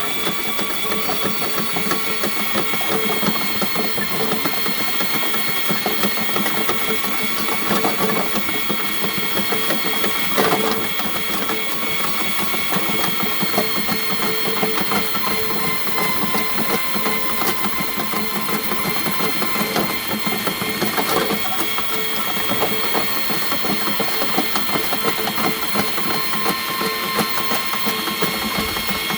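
Heavy-duty electric drain-cleaning machine running steadily, its motor whining and the spinning snake cable rattling with a fast, constant clicking as it bores through a root-blocked sewer main.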